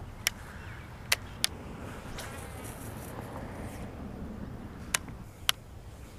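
Five sharp, brief clicks at uneven intervals from a baitcasting rod and reel being handled, over a faint steady outdoor background.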